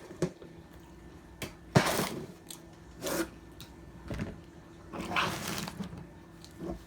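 A few short rustling and handling noises close to the microphone, with a sharp click about two seconds in and a soft thud near the end.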